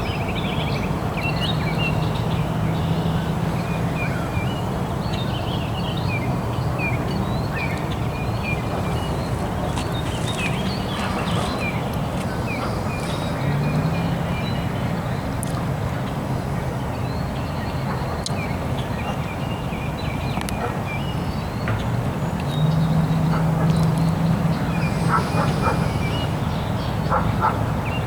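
Ducks quacking and small birds calling in short chirps again and again, over a steady low drone. A low tone within the drone swells about halfway through and again near the end.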